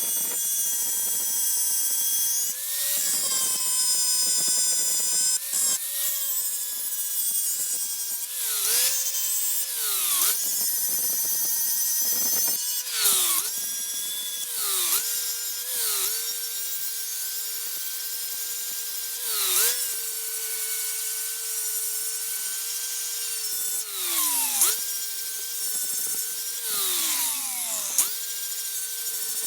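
High-speed rotary tool running with a steady high whine. About a dozen times it is pressed into the work, and the pitch sags under the load with a burst of grinding and scraping before the motor speeds back up.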